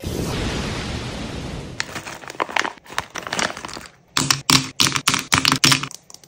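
A plastic bag crinkling, then a quick run of sharp plastic clicks and clacks as a handful of plastic markers is handled, about four a second near the end.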